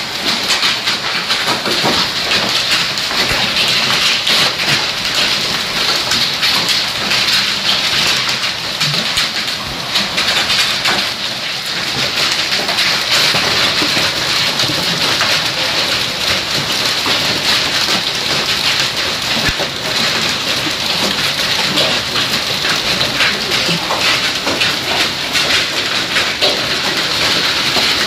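Hail and rain coming down hard: a dense, steady patter of countless small hailstones and drops hitting the ground and hard surfaces.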